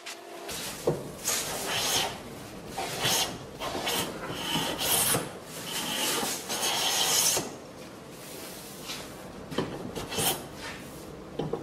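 Metal hand plane shaving the edge of a wooden board in repeated strokes, each a rasping swish, with a short lull about two-thirds of the way through.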